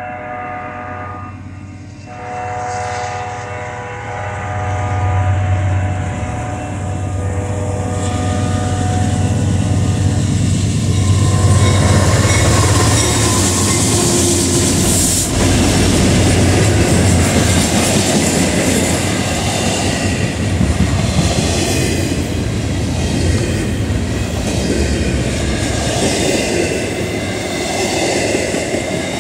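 Air horn of Norfolk Southern GE C40-9W locomotive 9478 leading a freight train: a blast that stops about a second in, then a second long blast ending about eight seconds in. The diesel locomotives then pass with a deep engine drone, followed by freight cars rolling by with the wheels clicking over rail joints.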